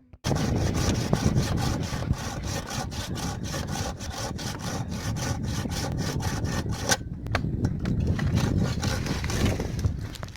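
A saw cutting into the wood of a tree, in quick, evenly spaced strokes; about seven seconds in the strokes give way to a more continuous rasp.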